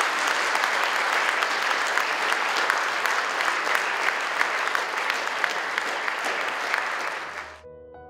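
Audience applauding steadily after a lecture; near the end the applause cuts off abruptly and soft piano music begins.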